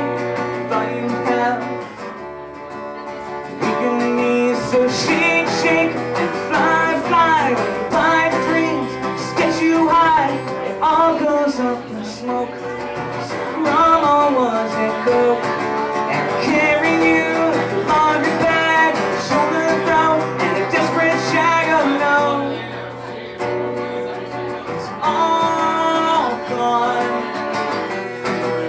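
A man singing to his own acoustic guitar accompaniment, the voice gliding between notes over steady strummed chords.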